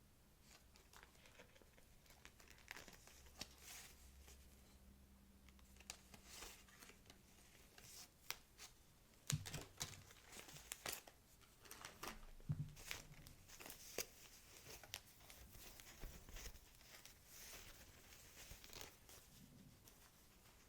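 Packaging being handled during an unboxing: soft, irregular crinkling and rustling with scattered small crackles and clicks, a few louder crackles about nine and twelve seconds in.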